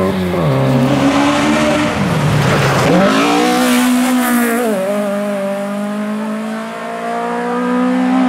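Rally car engine at high revs, its pitch dropping and climbing again several times as the car lifts and accelerates through the stage. A hiss of tyres sliding rises as the car passes close, about three to four seconds in.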